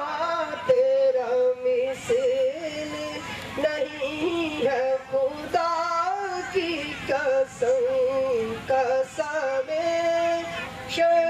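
A man's solo voice singing into a microphone in long held notes with wavering, ornamented turns, broken by short breaths.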